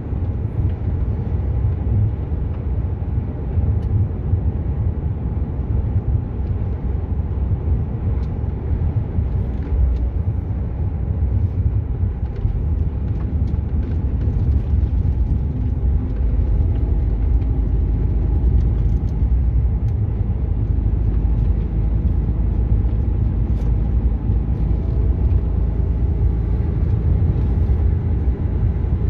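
Lorry's engine and tyre noise heard inside the cab while it drives along at road speed: a steady low rumble.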